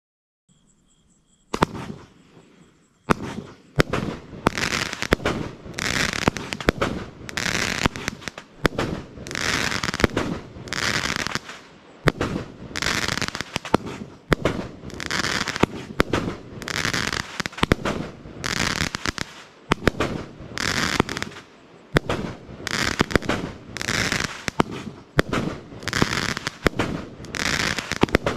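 25-shot, 30 mm fan-shaped firework battery firing. Sharp launch reports begin about three seconds in and come about once a second, each followed by about a second of hissing crackle from the bursting brocade comets and silver chrysanthemum stars.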